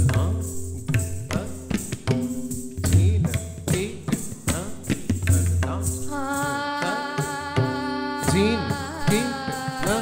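Indian classical-style accompaniment: tabla playing a steady pattern, the bayan's low strokes sliding in pitch, with a sustained melodic line entering about six seconds in and held on long notes.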